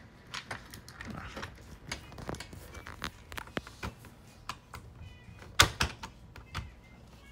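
Irregular clicks and taps of plastic parts as the printhead damper clamps of an Epson 8550 printer are pushed and wiggled into place, the loudest click about three quarters of the way in, with a few brief faint squeaks between.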